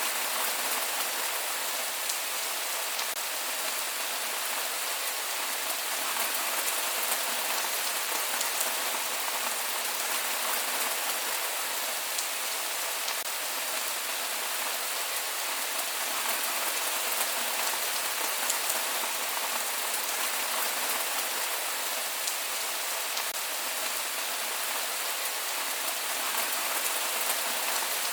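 Steady rain falling on a surface, an even hiss dense with fine drop ticks, with no thunder.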